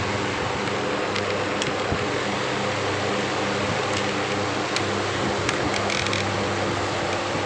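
Box fan running steadily: an even rush of air over a low, steady motor hum, with a few light ticks.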